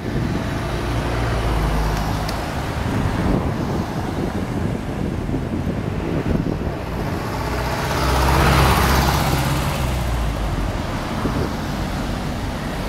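Road traffic: cars and trucks driving past close by, a steady engine and tyre rumble, with one louder vehicle passing about eight seconds in.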